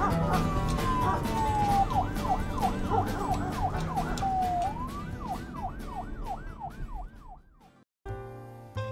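Comic sound effect over background music with a steady beat: a long falling whistle-like glide, then a warbling tone that swoops up and down about three times a second, like a siren. Music and effect fade out about seven and a half seconds in, followed by a brief silence.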